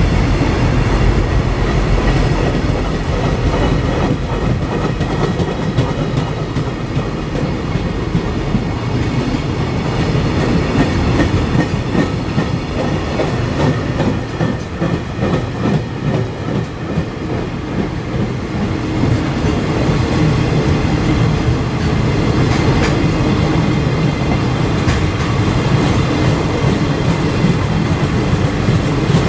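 Long freight train of container flatcars rolling past. The wheels clatter over the rail joints in a continuous, loud rumble.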